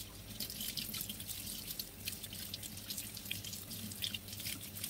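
Kitchen tap running into a stainless steel sink while hands rinse something under the stream, a steady splashing hiss with small irregular splashes.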